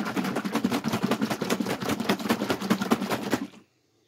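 A bottle of 3M Imperial Hand Glaze polish shaken hard by hand, in a fast, even rhythm of about ten strokes a second that stops about three and a half seconds in.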